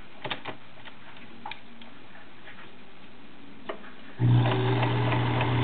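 A few light clicks, then about four seconds in the motor of a Kenmore Model 1703 sewing machine starts and the machine runs steadily, stitching the arrowhead cam pattern.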